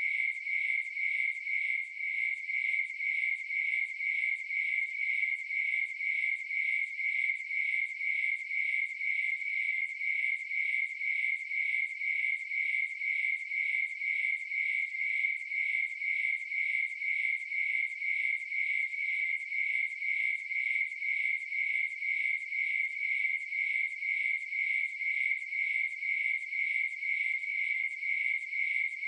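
Crickets chirping steadily in an even, unbroken rhythm of a few high-pitched chirps a second.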